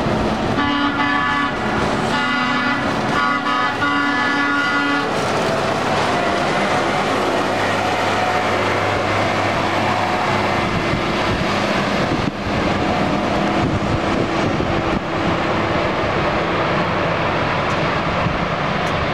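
A CSX maintenance-of-way track machine sounds its horn in several blasts with short breaks over the first five seconds, then its engine and wheels run steadily as it rolls along the rails.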